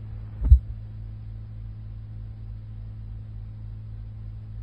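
Low steady electrical hum left on the recording after the talk ends, with one loud thump about half a second in.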